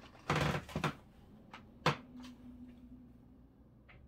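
Handling and rustling noise as a person moves onto a digital bathroom scale, then a single sharp knock a little under two seconds in as weight lands on the scale's platform.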